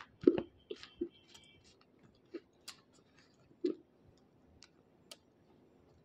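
Close-up crunching and chewing of water-soaked slate stone between the teeth: a run of short, crisp cracks, loudest about a third of a second in, coming more sparsely toward the end.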